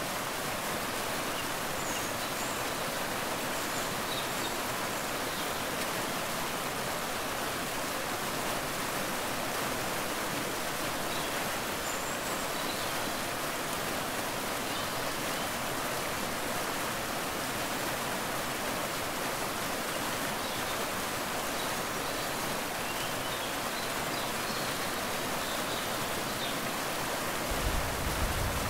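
Steady rushing of a waterfall, an even hiss of falling water, with a few faint high chirps now and then and a deeper rumble coming in near the end.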